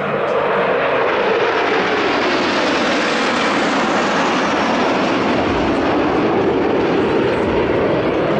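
Alpha Jet formation flying overhead: the twin Larzac turbofans of several jets make a steady, loud jet roar, dipping slightly in pitch midway and rising again.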